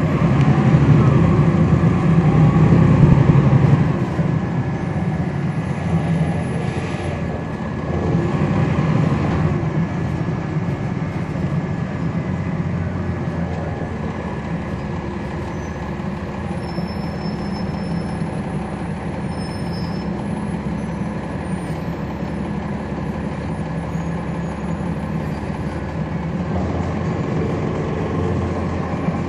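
Cummins ISL9 diesel engine of a 2011 NABI 40-SFW transit bus, heard from inside the bus. The engine pulls loudest for the first few seconds, eases off, pulls again briefly about eight seconds in, then runs more quietly and steadily.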